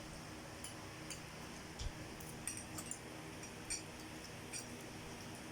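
Forks clinking lightly against plates as spaghetti is eaten: about seven short, scattered clicks.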